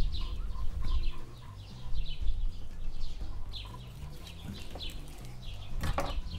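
Birds chirping over and over in short, quick downward-sliding calls. Near the end a sharp knock as a knife is set down on a wooden cutting board.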